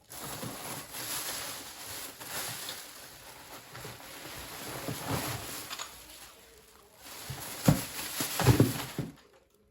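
Packaging rustling and crinkling as an item is unwrapped by hand, followed by a few knocks and clatters near the end as it is handled and set down.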